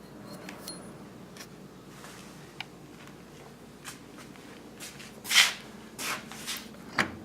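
Hands working the parts of a Fay & Egan 560 24-inch planer: quiet at first, then a loud scrape about five seconds in, followed by a few shorter rubs and knocks and a sharp click near the end.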